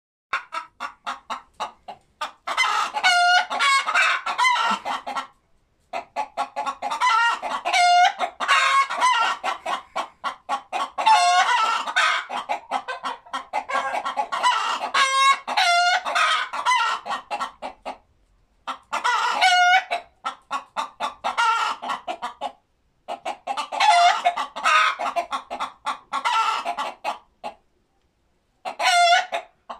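Chickens cackling together in repeated bouts of rapid clucks that build to longer, drawn-out squawks, with short pauses between bouts.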